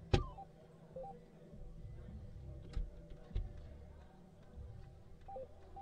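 A soft-tip dart strikes an electronic dartboard with one sharp click, followed by the board's short electronic beeps. A couple of lighter clicks follow midway, as darts are pulled from the board, and another two-note beep sounds near the end.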